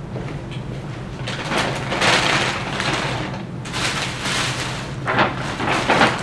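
Plastic shopping bags rustling and crinkling in irregular bursts as items are rummaged through and pulled out.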